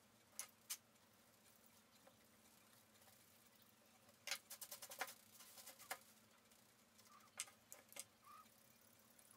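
Faint snips of grooming chunker shears closing through synthetic poodle hair: a couple of single snips, then a quick run of them about four seconds in, and two more near the end.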